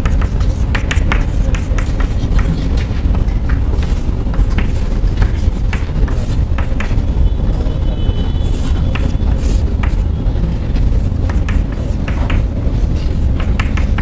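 Chalk tapping and scratching on a blackboard in short, irregular strokes, over a loud steady low rumble.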